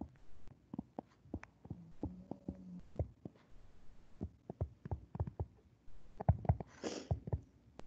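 Stylus tapping and scraping on a tablet screen while handwriting, a quick, irregular run of light clicks and thumps, with a short hiss near the end.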